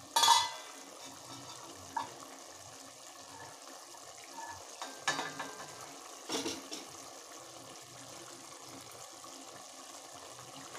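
Spiced vegetable masala sizzling gently in a pot on a medium gas flame, with a few sharp metallic clinks, the loudest one right at the start.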